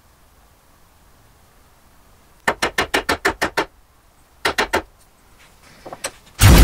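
Small cross-peen hammer lightly tapping a glued wood sliver into a gap in a dovetail joint: a quick run of about nine taps, then three more. Right at the end a loud rasping rub starts suddenly.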